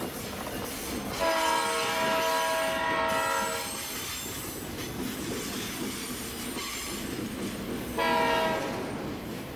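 Diesel freight locomotive's air horn sounding a long blast of about two and a half seconds, then a short blast near the end, over the steady running noise of the train.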